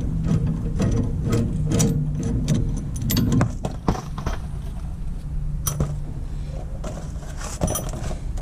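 Irregular metallic clinks and knocks as tools and steel suspension parts are worked on while the van's worn strut rod and bushings are removed.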